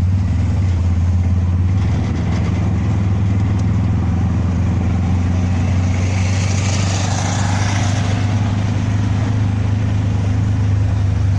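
A vehicle's engine running at a steady pace, a low even drone, with a swell of hiss about six to eight seconds in.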